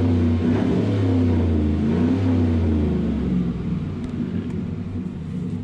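2016 Chevrolet Silverado's engine running through a Borla ATAK aftermarket exhaust, giving a deep, rumbling exhaust note. It is loudest for about the first three seconds, then settles a little quieter.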